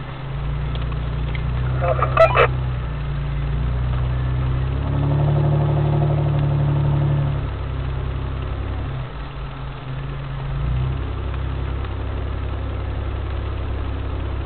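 Four-wheel drive's engine running at low speed on a sandy bush track, heard from inside the cabin; the engine note rises and grows louder for a couple of seconds about five seconds in, then settles. A brief sharp sound about two seconds in.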